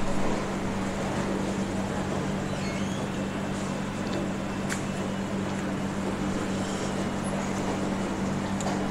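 A steady low mechanical hum under a constant noisy background, with one brief sharp click about five seconds in.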